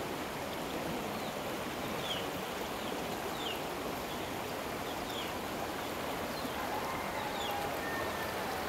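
Floodwater of the swollen Borapani river rushing through a flooded village, a steady rushing noise. A short high chirp, falling in pitch, repeats about once a second over it.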